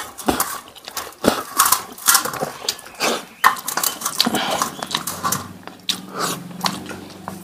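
People eating rice and fish curry with their hands from steel plates: fingers mixing and scraping rice against the metal, with chewing and lip-smacking, a run of irregular clicks and smacks.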